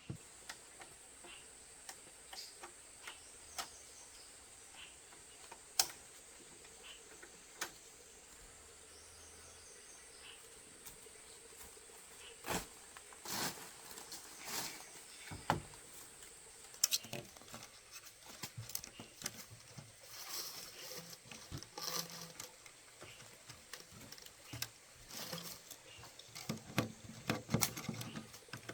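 Scattered light knocks and clicks, a few at a time at first and coming thick and fast in the second half, over a faint steady high-pitched hum.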